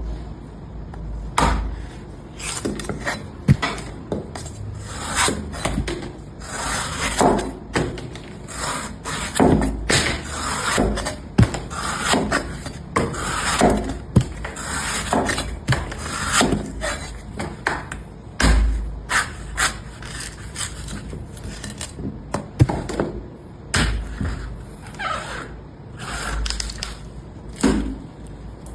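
Street vendor's heavy blade chopping and trimming tender green coconuts: a long, irregular run of sharp hacks and dull thuds, sometimes several a second, with scraping between the cuts.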